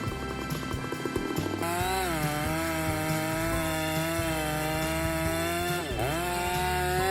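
Chainsaw running at high revs, its pitch steady and then dipping sharply and recovering about six seconds in, with background music underneath.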